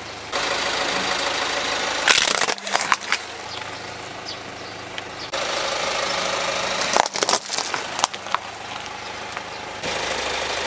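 A car's engine running at idle while its tyre rolls over plastic toys, cracking and crunching them: a dense burst of cracks about two seconds in, and a few separate sharp cracks around seven seconds.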